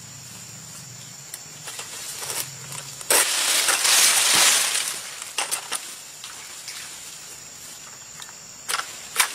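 Dry vegetation rustling and crunching, with a loud rustle lasting about two seconds starting about three seconds in, then a few sharp crackles and clicks near the end.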